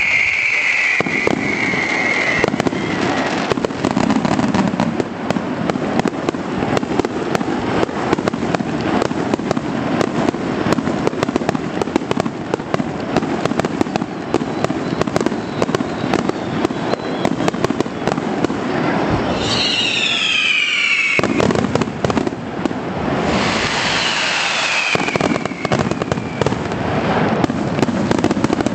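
Fireworks display: a continuous barrage of aerial shells bursting with booms and dense crackling. Whistles that fall in pitch cut through it at the start, about two-thirds of the way in, and again a little later.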